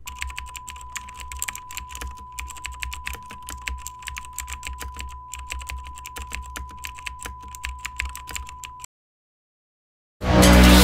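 Rapid, irregular clicking over a low hum and a steady high tone, cutting off suddenly about nine seconds in. After a second of silence, loud electronic music with a heavy beat starts near the end.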